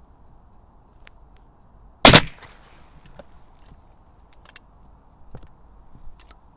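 A single shotgun shot about two seconds in, a sharp report with a short tail. Faint scattered clicks and rustles follow.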